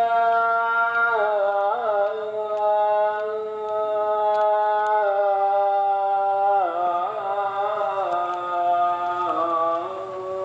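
A wordless melody sung by a single voice, made of long held notes. The pitch steps down a few times, with a short wavering slide at each change of note.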